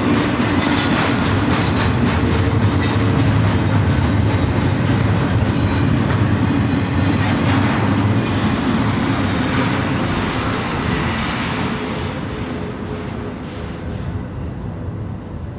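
Double-stack container cars of a BNSF freight train rolling past, steel wheels running on the rails with a steady rumble and clatter. The sound fades over the last few seconds as the end of the train goes by.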